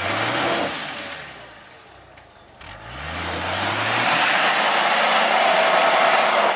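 An off-road 4x4's engine revving up twice as it tries to climb a muddy bank, the second time held longer, with the tyres spinning and throwing mud in a loud rushing noise.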